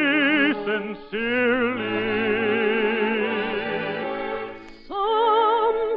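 Operetta singing with orchestral accompaniment: a singer with strong vibrato holds a long note on the word "sincerely", which fades away, and a higher voice starts a new phrase near the end.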